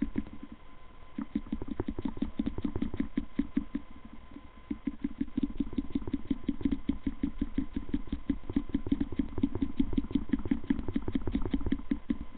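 A man's voice making fast, rhythmic grunts, about seven a second, with a couple of short let-ups, for a puppet's jerking motions.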